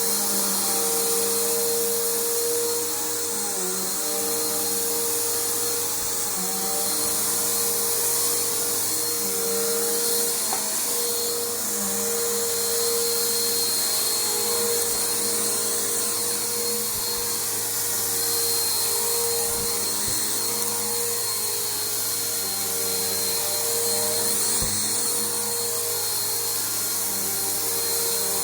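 Bissell PowerForce Bagged upright vacuum cleaner running steadily on an old carpet, its motor hum rising and dipping slightly as it is pushed and pulled over the carpet.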